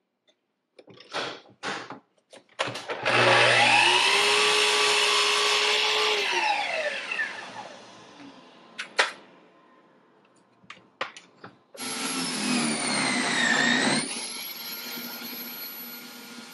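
A few knocks, then a small electric motor spins up about three seconds in, runs for a few seconds and winds down. After a couple of clicks, another whirring motor sound starts near the twelve-second mark and wavers in pitch.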